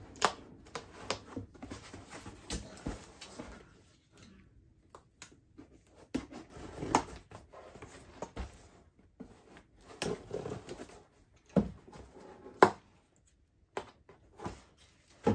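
A cardboard shipping box being cut open with a knife and handled: irregular scrapes, taps and rustles of cardboard, with one sharp knock near the end.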